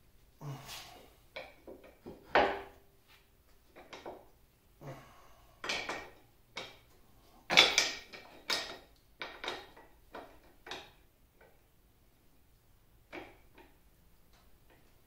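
Metal parts and a wrench clinking and knocking against the cast-iron carriage of a 1950 LeBlond Regal lathe as it is taken apart by hand, the lathe itself not running. The clanks are irregular, some with a short ring, the loudest about two and a half and seven and a half seconds in. After about eleven seconds only a faint tap or two follows.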